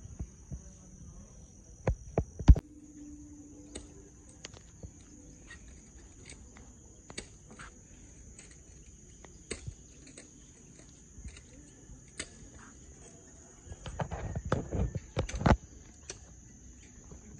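Insects trilling steadily in a high pitch. Scattered sharp taps cut through it, a couple about two seconds in and a louder cluster near the end.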